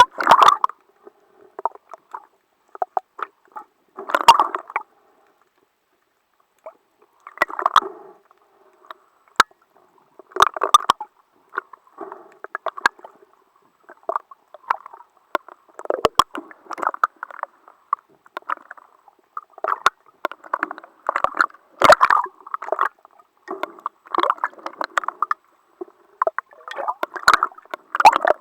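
Water gurgling and sloshing in irregular short bursts, with scattered sharp clicks.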